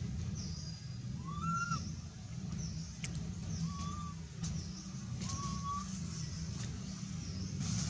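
Baby monkey crying with short, arched, whistle-like coo calls, three of them a second or two apart. A steady low rumble runs underneath.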